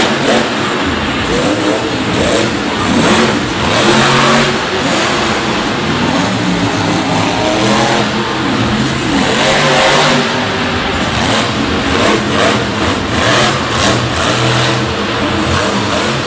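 Monster Mutt Dalmatian monster truck's supercharged V8 engine revving hard and loud, the pitch rising and falling again and again as the driver works the throttle through jumps and turns.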